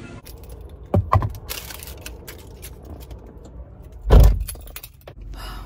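A set of car keys jangling in the driver's hand inside a car, with two sharp clicks about a second in and a loud, heavy thump a little after four seconds in, followed by a steady low hum.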